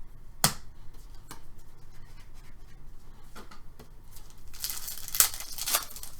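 Trading-card packs being handled and opened by hand. There is a sharp snap about half a second in, then near the end a second or so of wrapper tearing and crinkling with a couple of sharp clicks.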